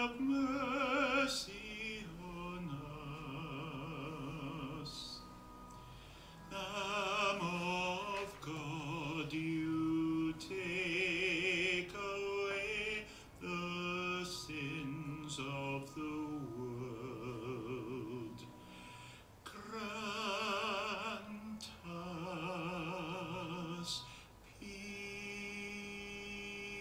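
A solo classical-style singer sings a slow song of long held notes with a wide vibrato, phrase after phrase with short breaths between, ending on steadier held notes.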